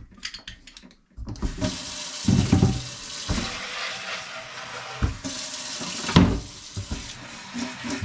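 Water running from a kitchen faucet's pull-down sprayer into a plastic pump garden sprayer tank to rinse it out, starting about a second in, with a few knocks as the tank is handled.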